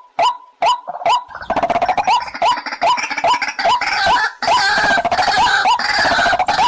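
White-breasted waterhen calling: short pitched notes repeated about three times a second, thickening about a second and a half in into dense, overlapping calling.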